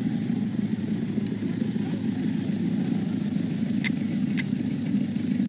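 A vehicle engine running steadily, a constant low rumble, with two sharp clicks about half a second apart near the end.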